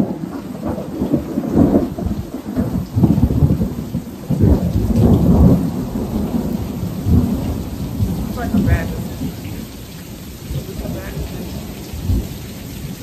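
Rainstorm: steady heavy rain with deep rumbling that surges and fades, loudest in the first half and dying down toward the end.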